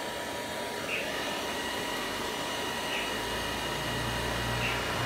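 Steady whirring hiss, with a low hum coming in about three seconds in, and a few short high chirps from a caged red-whiskered bulbul.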